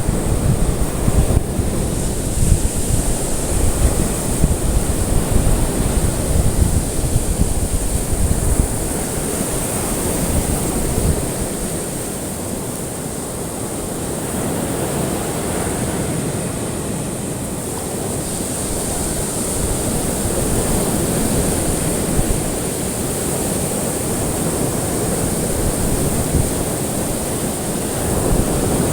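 Ocean waves washing on the shore, a continuous surf noise with a heavy low rumble for the first several seconds, easing off in the middle and swelling again later.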